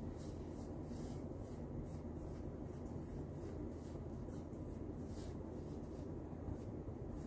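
Hands kneading and working flour into soft cookie dough on a floured countertop: faint, irregular rubbing and patting strokes over a low steady hum.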